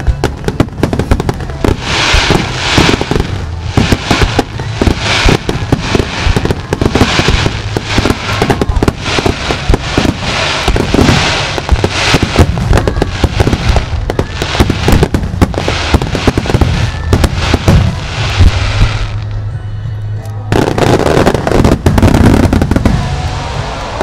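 Starmine fireworks salvo: many shells bursting in rapid succession, a dense run of bangs over loud accompanying music. About nineteen seconds in the bursts thin out briefly, then a second heavy barrage follows.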